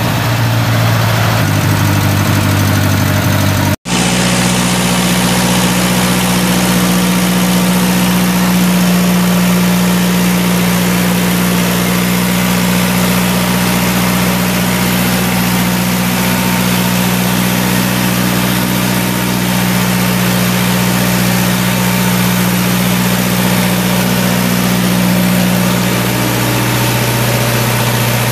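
Wisconsin four-cylinder gas engine of a Clipper concrete saw running steadily. About four seconds in the sound cuts out for an instant, then the engine runs on at a steady, slightly different pitch.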